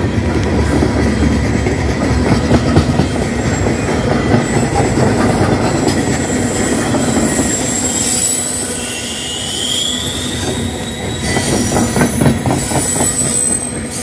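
Cars of the long CN 568 freight train rolling past at speed, the wheels rumbling and clattering over the rails. High-pitched wheel squeal comes and goes, with a rising squeal about nine seconds in.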